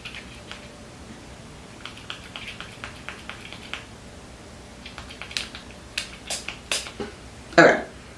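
Small clicks of a perfume sample vial's spray cap being worked, then a few short sharp spritzes of perfume, and a louder sniff near the end.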